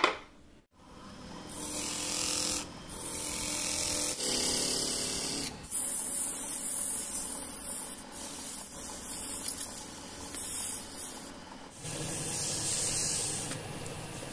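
Sandpaper pressed against a mastic-wood goblet spinning on a wood lathe: a hissing rasp in several strokes, each broken off briefly as the paper is lifted and moved, over the steady run of the lathe. A short sharp click comes at the very start.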